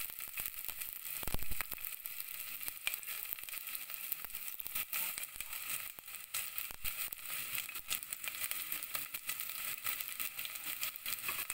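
Sliced onion sizzling in hot oil in a stainless steel pot, a steady crackle of small pops, with one louder knock about a second and a half in.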